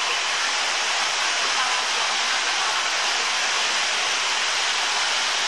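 Steady rushing water of a stingray touch pool, an even hiss with no breaks, with faint voices in the background.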